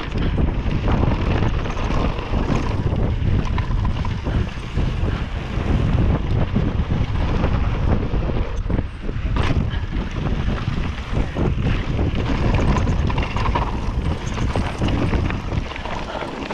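Heavy wind buffeting on the camera microphone of a mountain bike riding fast down a packed-dirt jump trail, mixed with the rumble of the knobby tyres over the dirt and short knocks from bumps and landings, the loudest about nine and a half seconds in. The noise eases a little near the end as the bike slows.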